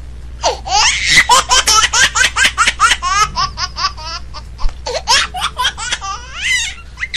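Young man laughing hard: a long run of high-pitched laughs, several short bursts a second, that dies down near the end.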